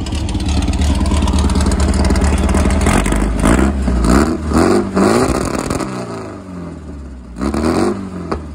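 Straight-piped VW Beetle engine idling steadily, then blipped hard about four times from about three seconds in, the revs jumping up and dropping back each time.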